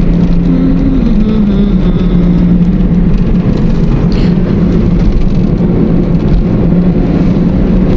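Car cabin noise while driving at speed: a steady low road rumble and engine drone, the engine note dropping slightly in pitch about a second in.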